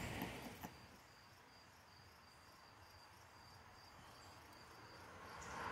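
Near silence, with faint, high insect chirping repeated about three times a second and a single soft click about half a second in.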